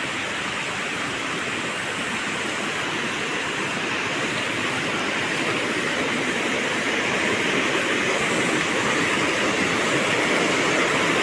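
Steady rush of water falling at Devkund waterfall, growing slowly louder.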